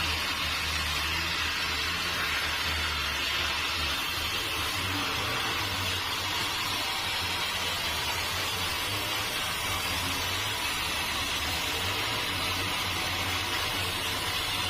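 Sawmill machinery running steadily: a constant hiss over a low, slightly wavering hum.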